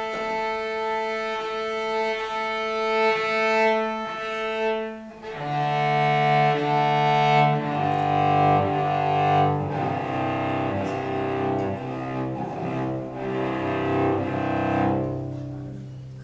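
Chamber music from a piano quartet, led by bowed strings: held melody notes at first, then cello and lower parts come in about five seconds in for a fuller, louder passage that fades away near the end.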